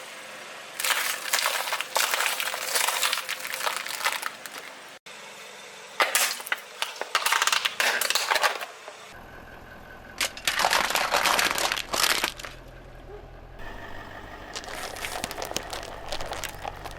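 Four separate bouts of crunching and crackling as brittle objects are crushed under a car's tyres. A low, steady car engine hum sits beneath the later bouts.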